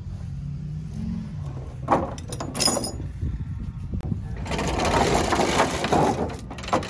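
Steel tow chains clinking and rattling as they are handled and dragged across a wooden trailer deck. It begins with a few sharp metal clanks, and from about halfway through becomes a dense, continuous rattle, over a low rumble at the start.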